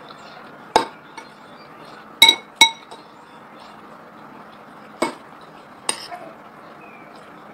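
Metal cutlery clinking against a ceramic bowl while eating: five sharp ringing clinks, two of them in quick succession about two seconds in.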